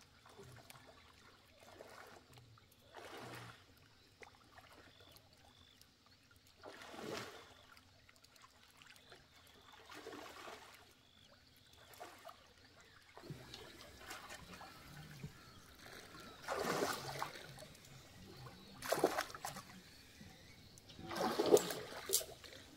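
Muddy pond water splashing and trickling in irregular swells as a fishing net is worked through the shallows, with the loudest splashes near the end.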